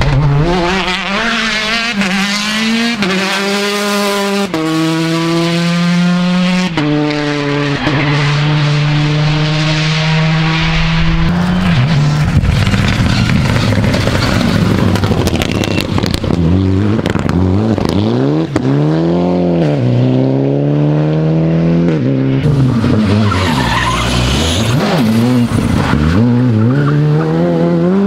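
Rally cars at full throttle: engines revving hard up through the gears, the pitch climbing and dropping back at each upshift, with stretches of tyre noise and engines rising and falling as several cars pass in turn.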